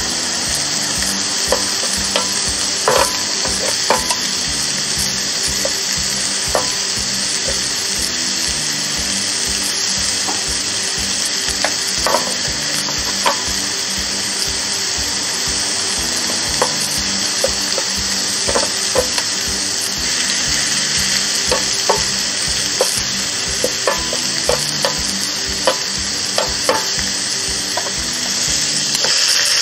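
Beef steak and hot peppers sizzling on the ridged hot plates of an electric contact grill: a steady hiss with scattered sharp clicks and pops.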